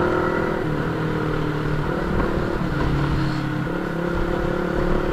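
Motorcycle engine running while riding. Its note steps down and up a few times with the throttle, over a steady low rumble of wind and road noise.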